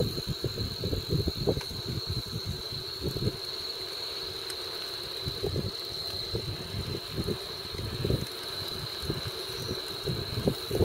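Wind buffeting the microphone in uneven low gusts while riding a bicycle, over a steady high-pitched chorus of insects.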